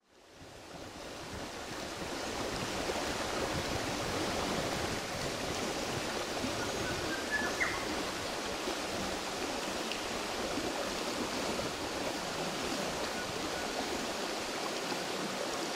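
A steady rushing noise that fades in over the first two seconds and then holds even.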